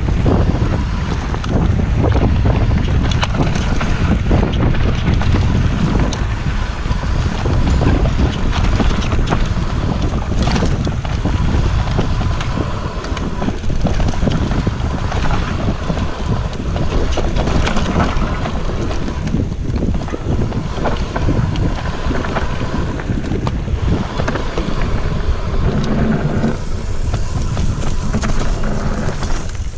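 Wind rushing over the microphone and tyres rolling fast on a dirt forest trail during an e-mountain-bike descent, with a constant run of small rattles and knocks from the bike over bumps, roots and stones.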